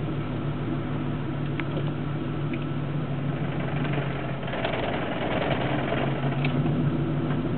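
Car engine idling with a rattle from the manual transmission. About four and a half seconds in, the sound turns harsher and noisier for a couple of seconds, then settles back to the steady idle.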